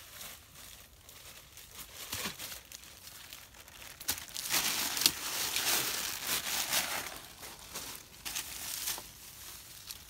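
Fresh-cut leafy branches rustling and crinkling as they are handled and piled on the ground. The sound is densest from about four to nine seconds in.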